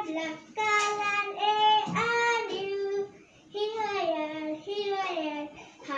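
A girl singing into a microphone in drawn-out notes that slide up and down in pitch, with a short break in the middle.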